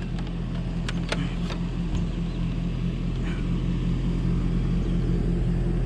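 A vehicle engine idling with a steady low hum, with a few light clicks about a second in as a plastic boombox is carried by its handle.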